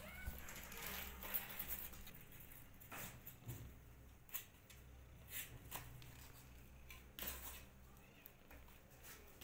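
Faint scattered rustling and scratchy clicks from kittens moving about on a lap, over a low steady hum.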